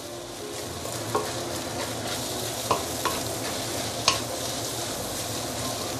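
Egg fried rice sizzling in a stainless steel wok as it is stirred and turned with a wooden spatula, with a few short clicks of the spatula against the pan.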